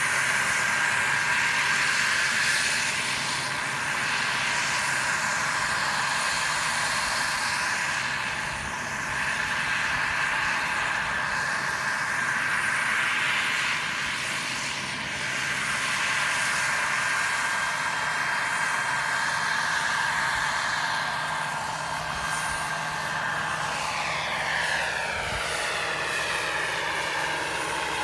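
Radio-controlled scale model helicopter, a BK 117 replica, in flight: a steady high-pitched whine of its motor and rotors. Near the end the sound sweeps in pitch as the helicopter passes close.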